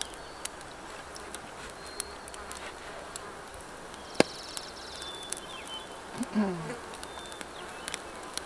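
Campfire crackling with scattered sharp pops over a steady outdoor hiss, one pop louder about four seconds in. A brief low hum from a man's voice a little after six seconds.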